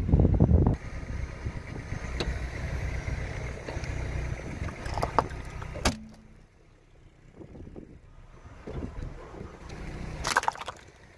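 A car tyre rolling slowly over plastic items on asphalt, with the low rumble of the car and a few clicks, then a sharp crack as a plastic measuring cup breaks under the tyre about six seconds in. Another sharp crack comes near the end.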